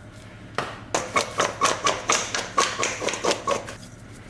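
A jar of fried-potato seasoning shaken hard over potato wedges: a fast, rhythmic rattling of about a dozen shakes, roughly four a second, stopping after about three seconds.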